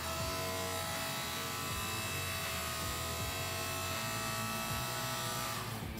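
Hydraulic forging press's electric pump motor running with a steady hum while the press draws out a cable Damascus billet; the sound stops shortly before the end.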